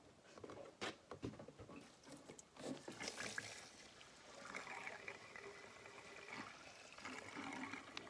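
Regular gasoline poured from a can into the DR trimmer mower's fuel tank: a few knocks and clicks of handling, then a steady trickling pour from about four seconds in.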